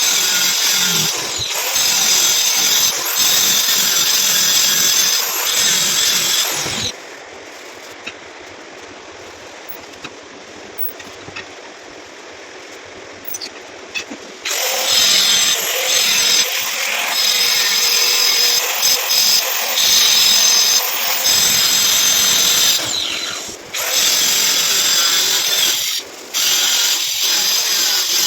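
Handheld power tool running with a high whine for about seven seconds, stopping, then running again for about eight seconds, with a few short bursts near the end.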